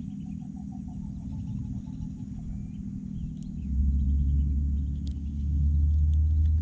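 Low rumble on the action camera's microphone, much louder from about four seconds in, with faint short chirps of small animals over it.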